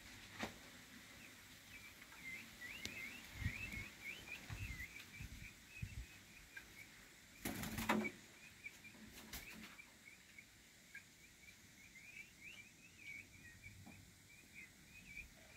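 Peafowl chick flapping its wings once, loudly, about halfway through, as it flies up onto a high shelf. Quiet, steady high bird chirping runs throughout, with a few faint knocks.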